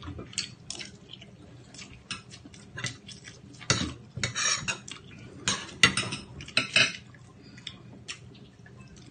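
Spoon and dishes clinking and scraping during a seafood meal: a scattered run of short clicks and clatters against bowls and plates, the sharpest about six seconds in.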